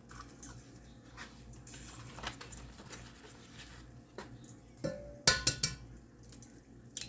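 Eggs being tapped and cracked against a Dutch oven: light clinks and taps, then a sharper cluster of three or four knocks about five seconds in.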